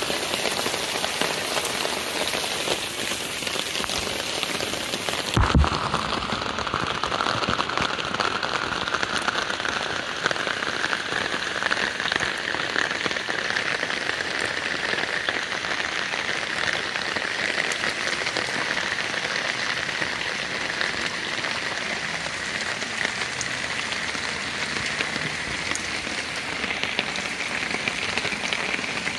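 Steady rain falling on wet ground and puddles, with a brief low thump about five seconds in.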